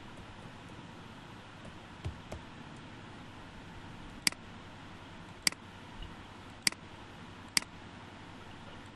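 Four sharp computer mouse clicks a little over a second apart, over a faint steady hiss, with two soft taps earlier on.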